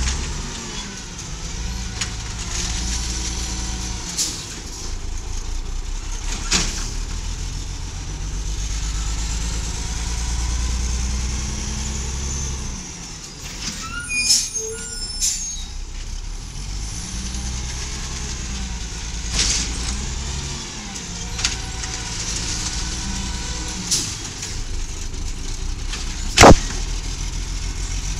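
1996 LNG-powered Volvo garbage truck with an Amrep Octo automated side-loader running through its pickups: steady engine rumble, a handful of short air-brake hisses as it stops and moves between carts, and one loud sharp bang near the end. The uploader says this engine is not running well.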